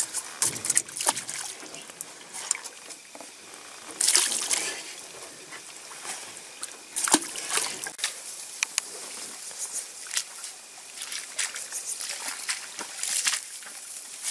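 Water sloshing, splashing and dripping as a wire-mesh fish trap is hauled out of the river over the side of a boat. Later come irregular rustling steps through tall grass.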